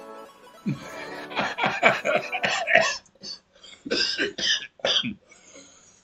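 A man laughing in quick bursts, then coughing several times.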